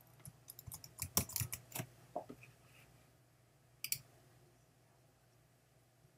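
A password being typed on a computer keyboard: a quick run of key clicks over about two seconds. A single click follows about four seconds in as the Install Software button is pressed.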